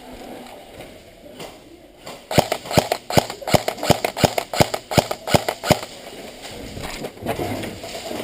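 Airsoft rifle firing about ten sharp shots in quick semi-automatic succession, roughly three a second, starting a couple of seconds in and stopping near the middle.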